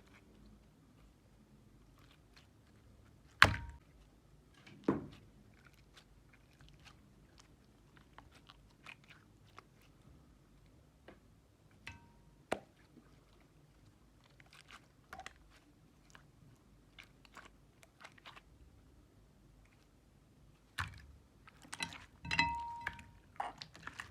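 Jelly slime being squished and stretched by hand: scattered small wet clicks and crackles. Two louder sharp snaps come about three and a half and five seconds in, and a denser run of squelches comes near the end.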